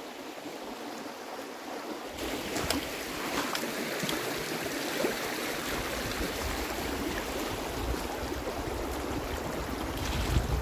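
Swollen mountain stream rushing steadily with a strong current, high after the previous day's rain. A low rumble joins about two seconds in, with a few faint clicks.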